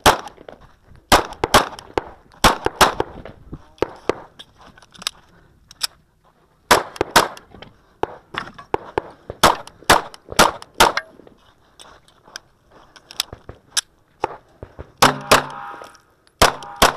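Kahr CM9 9mm compact pistol fired in quick pairs and short strings of shots, with a brief pause partway through. Near the end a hit steel target rings after a couple of the shots.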